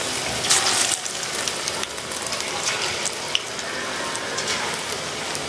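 Spice-coated potato sticks deep-frying in hot oil: a steady sizzle with many fine crackles as the oil bubbles around them, briefly louder about half a second in.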